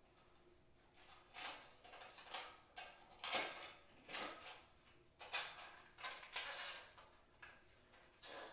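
Hand ratchet wrench clicking in short strokes, about one a second, as the mini bike's gas tank hardware is loosened.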